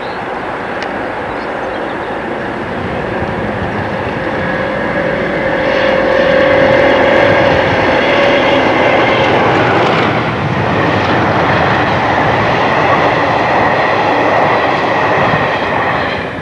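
Railtour train of a Class 33 diesel and a Class 73 electro-diesel locomotive with two 4TC sets running along the line. A steady rumble grows louder about six seconds in, and a held whine runs through the second half.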